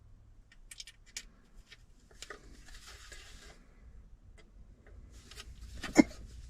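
Handling noises: scattered light clicks and ticks, a soft rustle for about a second, and one sharper knock near the end.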